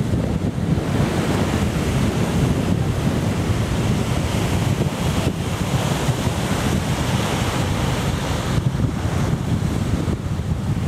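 Strong wind buffeting the microphone in a low, rough rumble, over the steady wash of small waves breaking on the shore.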